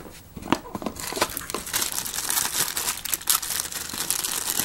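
Hands handling a 3.5 mm audio cable and its packaging, a dense crackle of many small clicks that starts about half a second in and carries on steadily.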